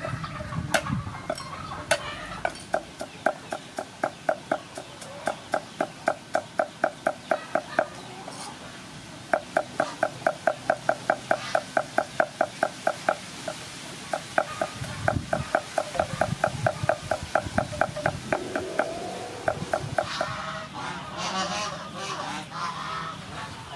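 Cleaver chopping garlic on a wooden chopping block in quick, steady strokes, about four or five a second, each a short knock with a slight ring. Near the end the chopping gives way to rougher scraping as the minced garlic is gathered with the blade.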